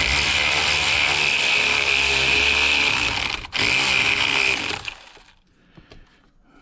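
Cordless power tool running under load as it tightens a battery terminal clamp nut, with a steady whine. It stops for an instant about three and a half seconds in, runs again briefly, then winds down.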